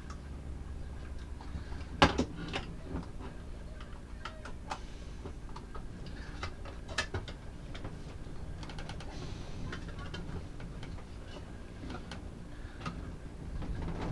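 Scattered small clicks and taps of a screwdriver and plastic parts being handled while wires are fastened into a temperature controller's screw terminals, the sharpest about 2 and 7 seconds in, over a steady low hum.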